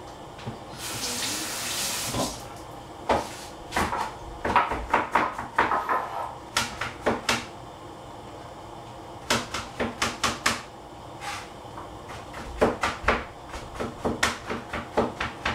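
Kitchen tap running briefly, about a second in, followed by several bursts of quick clattering knocks from kitchen utensils and dishes.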